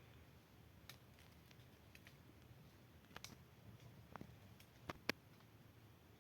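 Near silence with a few faint, scattered clicks and taps, the two sharpest coming close together about five seconds in.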